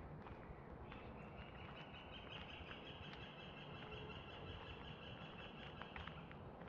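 A small bird's long, even trill, high-pitched, starting about a second in and running for about five seconds before it stops. Faint footsteps on a dirt path tick underneath.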